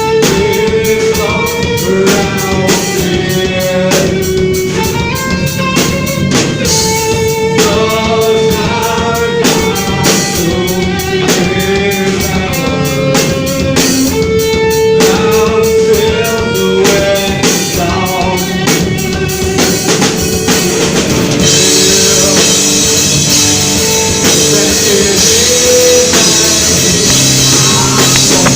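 Rock band music: a drum kit and guitars under a melodic lead line. About three quarters of the way through, the drums open up into a constant cymbal wash and the sound thickens.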